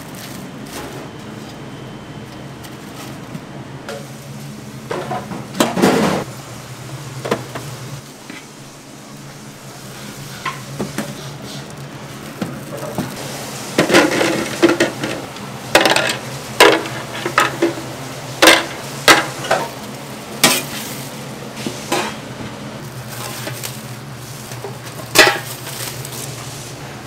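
Clear plastic and stainless-steel food containers being handled and set down in a prep counter: a rustle of plastic wrap early on, then a run of sharp clacks and knocks in the second half, over a steady low kitchen hum.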